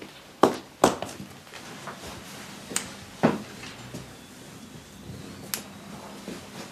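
Household knocks and clatter: a handful of sharp knocks, two close together in the first second, then more at intervals of a second or two.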